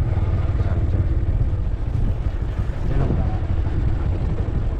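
Steady low rumble of wind buffeting the microphone, mixed with a vehicle's engine running, heard from a moving vehicle.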